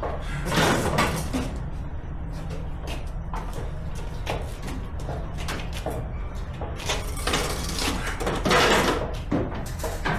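Clunks and short scrapes of steel parts being shifted and set in place on a small trailer frame while an axle is positioned. There is a scrape about half a second in and another near the end.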